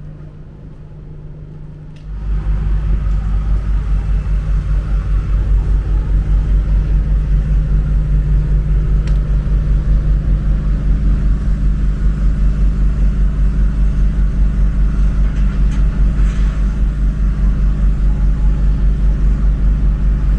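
A small engine on site machinery running steadily at constant speed: a loud, low rumble with a fast, even pulse, which sets in abruptly about two seconds in.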